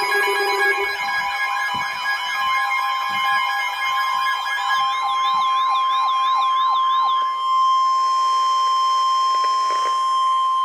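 Emergency Alert System alert tones: layered steady beeping tones with rapid yelping siren sweeps, and a steady high alert tone that comes in a couple of seconds in and holds until it cuts off suddenly at the end, just before the spoken warning.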